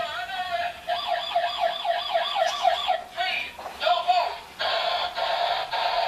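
Battery-powered toy police car's electronic siren playing through its small speaker: a thin, rapid warbling tone, about five sweeps a second, broken by a few short gaps.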